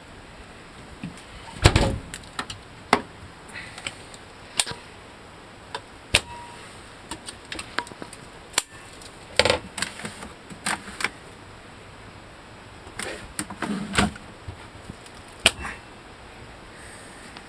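Fiberglass storage hatch lids and compartment doors on a boat being handled: a string of sharp knocks and clicks, with the loudest thump about two seconds in and more knocks near ten and fourteen seconds.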